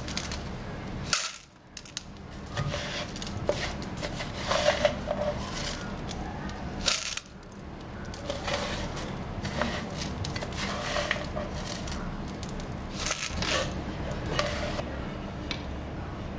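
Rice tipped into a rice cooker's metal inner pot: grains rattling and scraping against the pot, with sharp clicks and knocks now and then. The sound breaks off abruptly a few times.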